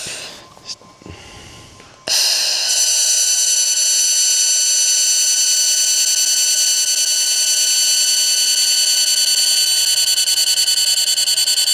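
xTool MetalFab handheld laser welder buzzing with a steady, high-pitched electronic whine while welding a stainless exhaust seam. It stops briefly at the start, then the trigger is pulled again about two seconds in and the whine holds steady.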